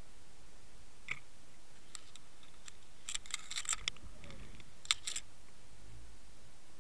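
Sharp clicks and rattles from the underwater camera rig and jig being knocked as a fish comes at the lure: a dense cluster about three to four seconds in and another about five seconds in, with a soft low rumble beneath. A steady hiss of water and camera noise runs throughout.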